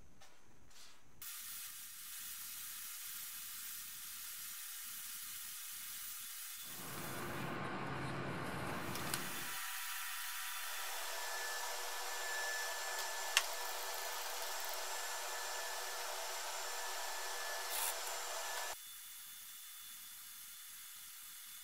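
Steady air hiss from spray-painting equipment, with a lower rushing sound for about three seconds in the middle. The hiss cuts off suddenly near the end.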